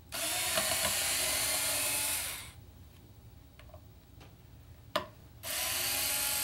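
Power driver running in two spells of about two and a half seconds each, backing steel mounting screws out of a guitar's tremolo bridge, with a sharp click between them.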